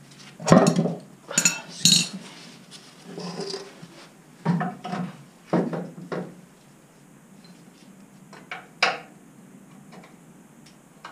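Steel control-arm bolts and suspension parts clinking and knocking against each other as the mounting bolts are fitted into the front control arm, in a series of irregular metal knocks. The loudest comes about half a second in, with more spaced through the rest.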